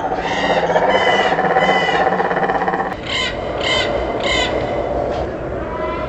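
Harsh bird calls over a steady background: three drawn-out calls in the first two seconds, then three shorter, sharper calls about half a second apart around the middle.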